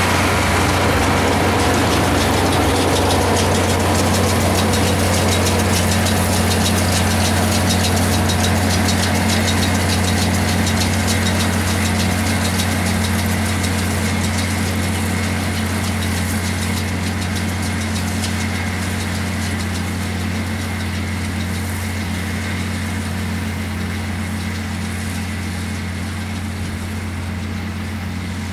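International Harvester 1066 tractor's turbocharged six-cylinder diesel running steadily with a deep, even hum, slowly getting quieter.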